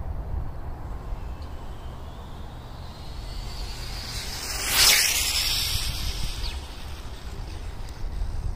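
Kyosho Fazer Mk2 electric RC car with an Acura NSX GT3 body making a high-speed pass close to the microphone: its whine and tyre hiss build up and peak sharply about five seconds in, then fade away. Wind rumbles on the microphone throughout.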